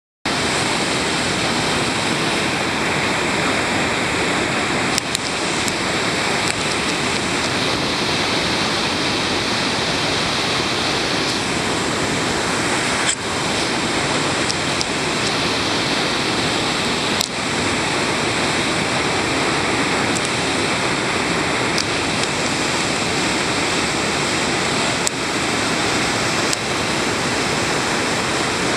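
Whitewater rapid rushing: a loud, steady roar of churning river water, broken by a few brief clicks.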